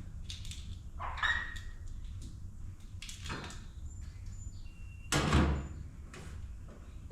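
Sheet-metal patch panel knocking and scraping as it is handled against the truck's bedside: a few separate knocks, the loudest about five seconds in.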